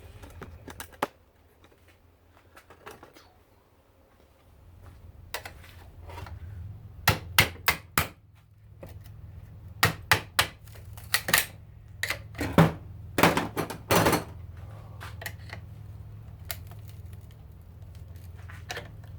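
Sharp metal knocks and clanks at an irregular pace, a few scattered at first, then in quick clusters through the middle, as a garbage disposal's metal parts are struck and worked loose with a hand tool.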